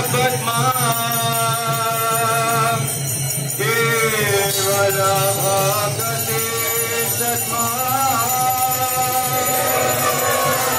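Devotional music during a temple puja: a held, sliding melody over steady jingling bells.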